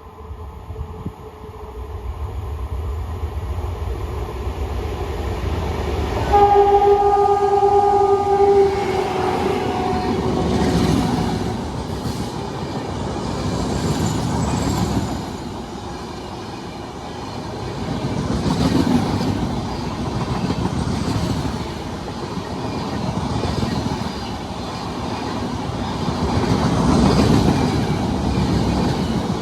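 Express train approaching at high speed, its locomotive horn sounding for about two and a half seconds and dropping slightly in pitch as it goes by. The coaches then rush past with clickety-clack wheel noise over the rail joints, swelling and fading every few seconds.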